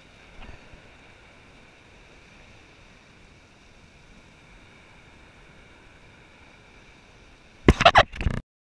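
Faint steady hiss of wind and water muffled through a chest-mounted action camera's housing, then, near the end, a burst of loud knocks and rubbing as a hand grabs the camera, after which the sound cuts off.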